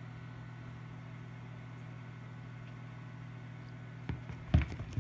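A steady low hum, then from about four seconds in a cluster of knocks and thumps as a British Shorthair cat paws and pounces at an olive on a rug.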